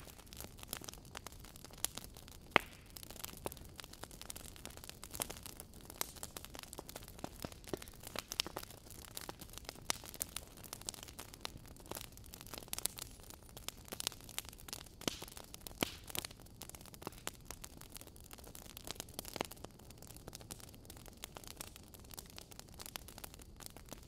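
Wood fire crackling in a fireplace: irregular sharp pops and snaps over a soft steady hiss, with one louder pop about two and a half seconds in.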